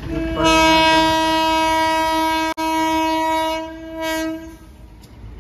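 Horn of an approaching electric locomotive: one long steady blast of about four seconds, fading out near the end.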